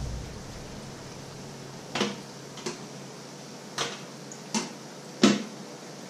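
Five sharp clacks of metal kitchenware, a ridged grill tray and a steamer basket being handled, with the last the loudest. Under them runs a steady hiss of potato fritters frying in a pan of oil.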